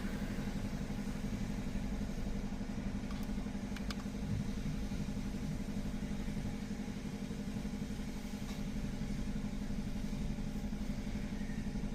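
Steady idling hum of a 2025 GMC Acadia's engine, heard from inside the parked SUV, with a few faint clicks.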